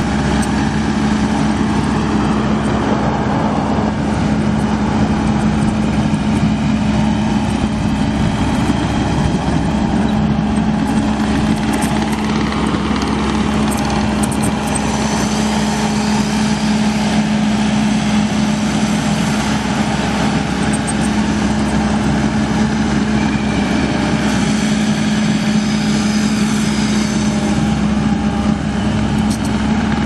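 Kubota four-cylinder turbo diesel engine of a 2015 Kubota SVL75-2 tracked skid steer running at a steady speed, with a constant low hum.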